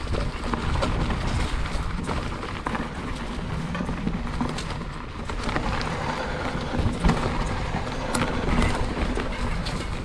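Specialized Stumpjumper mountain bike ridden over dry dirt singletrack: tyres rolling and crunching on the trail and the bike rattling over bumps, with many small knocks and clicks.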